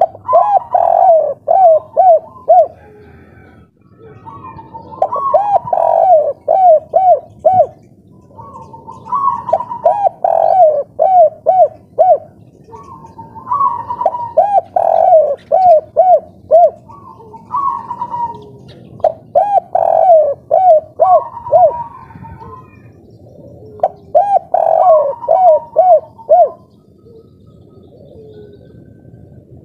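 Spotted dove (tekukur, derkuku) singing the 'kuk 3' song: about seven cooing phrases, one every four seconds or so. Each phrase is a higher opening note followed by a quick run of lower coos.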